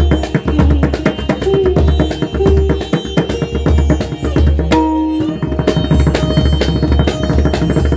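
Pakhwaj played solo: fast, dense strokes mixing deep, booming bass strokes with sharp, ringing treble strokes. The stream of strokes breaks off briefly about five seconds in, then resumes.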